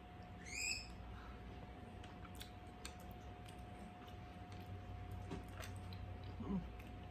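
Quiet eating: faint chewing and light clicks of chopsticks on food and plate, over a steady fan hum. A brief string of high rising chirps sounds about half a second in.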